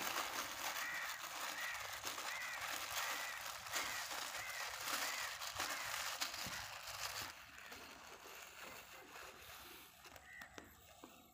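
Clear plastic bag crinkling and rustling as a hand kneads dough bait inside it, the rustling easing off after about seven seconds.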